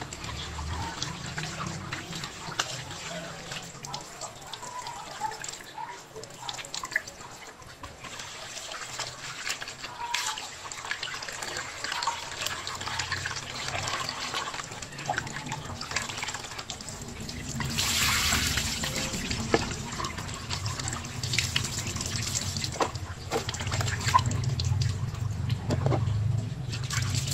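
Kitchen tap running into a sink as sliced raw beef is rinsed by hand and in a wire-mesh strainer, with splashing and small knocks. The water splashes harder about eighteen seconds in.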